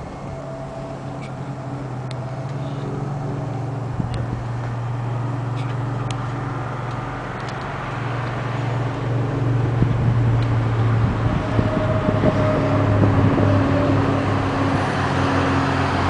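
A motor vehicle's engine running with a steady low hum that grows gradually louder, over faint traffic noise.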